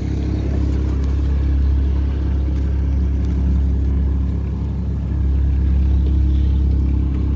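A boat's motor running steadily, a low even hum.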